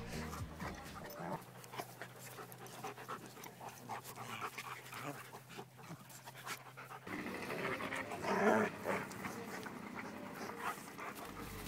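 Dogs panting close up as they play, with scuffling and a louder spell from them a little past eight seconds in.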